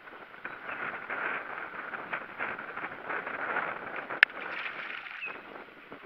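Fishing reel being cranked hard against a hooked fish, a fast rattling whir of gears and line, with one sharp click about four seconds in.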